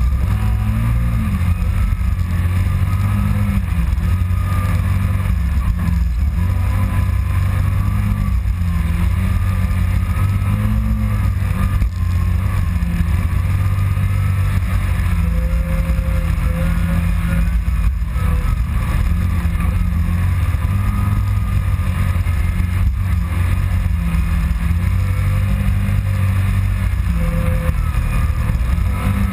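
Kawasaki Teryx side-by-side engine running steadily under way, its pitch wavering up and down a little with the throttle.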